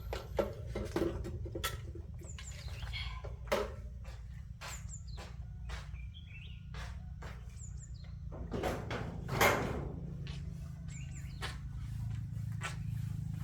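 Irregular sharp clicks and knocks over a steady low hum, with faint high chirps, like a small bird's, now and then.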